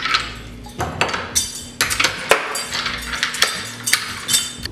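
A closet being shut and secured: a run of sharp metallic clinks and knocks, several with a bright ringing jingle.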